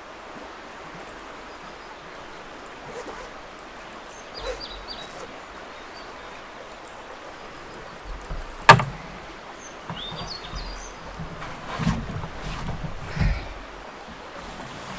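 Quiet lakeside outdoor ambience with faint bird chirps now and then. A little past halfway there is one sharp knock, the loudest sound, followed by a few dull thumps as a person shifts about on the wooden jetty boards.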